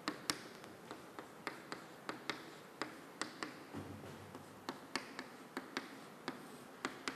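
Chalk writing on a chalkboard: a string of sharp, irregular taps and short scratches, a few a second, as symbols and arrows are drawn.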